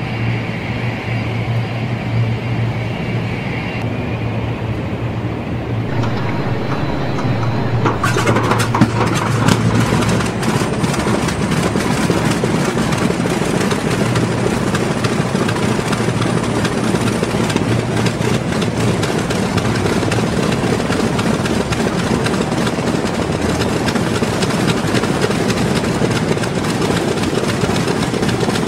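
Lockheed Super Constellation's piston radial engines starting up. A steady low engine drone grows fuller and louder about eight seconds in as more engines catch, then settles into an even run.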